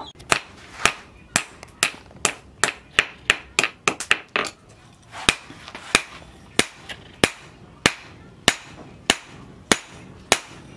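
Hand hammer striking a red-hot steel cleaver blank on a steel anvil block: a run of sharp metallic blows, quick and close together for the first few seconds, then steady and evenly spaced, about one and a half a second.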